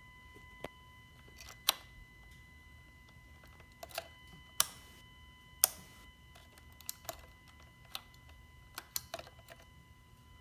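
Faint, steady high-pitched whine from a Kawasaki VN750 motorcycle with everything shut off: the fuel tank venting as heat rises from the engine. Irregular sharp clicks and ticks sound over it.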